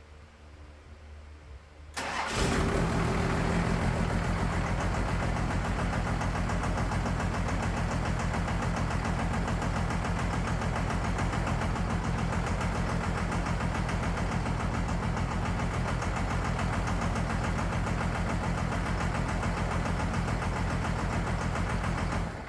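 12-valve Cummins 5.9-litre inline-six diesel starting about two seconds in and catching almost at once on a newly fitted VE injection pump, then idling with a pulsing beat until it cuts off at the end. It is missing hard, which the owner puts down to a fuel leak at one of the injector lines.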